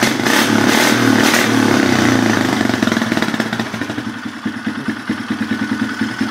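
Polaris Sportsman 500 ATV's single-cylinder four-stroke engine running through a custom exhaust that is louder than stock. It revs briefly a few times in the first second and a half, then settles to a steady idle that slowly grows quieter.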